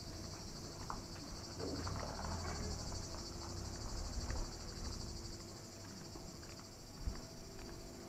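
A chorus of cicadas singing steadily and high. A low rumble on the microphone comes in the middle, and a single knock sounds near the end.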